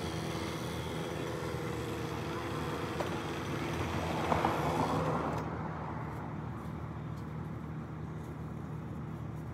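Small two-stroke chainsaw idling as it is carried past, louder around four seconds in, then shut off about five seconds in; a low steady engine hum continues underneath.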